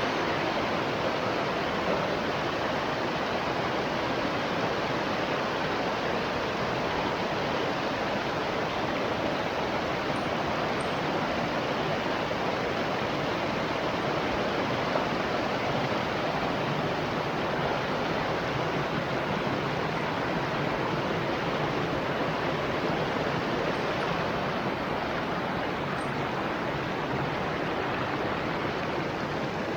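Steady rush of flowing water, an even unbroken noise that holds at one level throughout.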